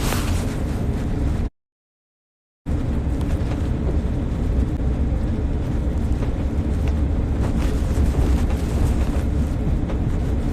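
Steady low rumble and hiss of a moving car, loud on the phone's microphone. The sound drops out to dead silence for about a second shortly after the start, then returns.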